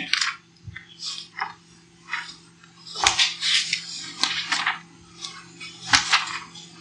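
Scattered short, sharp noises over a steady low hum on an old lecture-hall tape recording.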